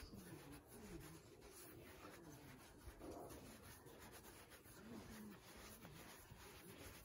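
Faint rubbing of hands and a ball of bread dough being dragged across a floured tabletop while the dough is shaped and its surface tightened.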